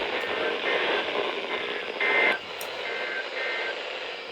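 NOAA Weather Radio SAME end-of-message data bursts: short two-tone electronic warbles, about a second apart, over steady radio static, marking the end of the required weekly test broadcast.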